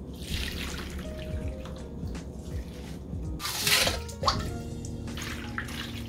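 Background music over water splashing and running, with the loudest splash a little past halfway.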